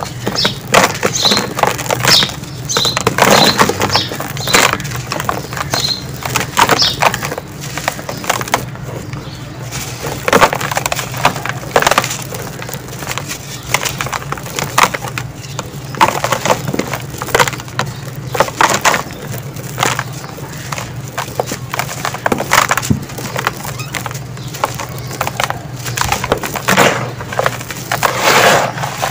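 Hands crushing and crumbling dry sand-cement lumps: an irregular, gritty run of crunches as the lumps break apart and powder pours off.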